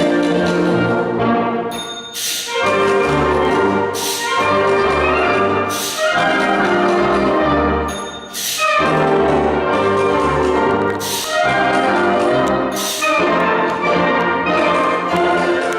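Concert wind band playing a brass-led passage, with sharp accents about every two seconds and a brief high ring about two seconds in.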